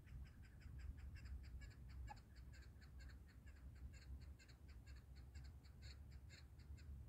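Chukar partridge calling: a faint, fast, even run of short clucking chuk notes, about five a second, that stops near the end.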